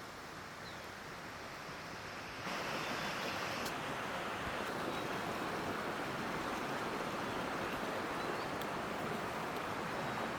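Steady rushing of water, which gets louder suddenly about two and a half seconds in.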